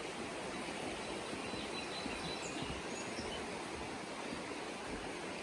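Steady outdoor rushing noise, with a few faint high bird chirps about two to three seconds in.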